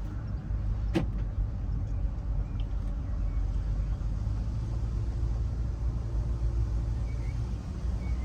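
Car driving along: a steady low road and engine rumble, with one sharp click about a second in.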